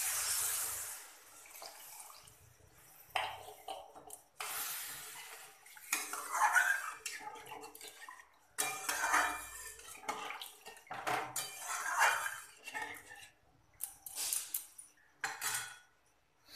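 Water poured into a metal kadai of fried spice paste, then a metal spatula scraping and stirring around the pan in a run of irregular strokes with short pauses, mixing the masala into a thin gravy.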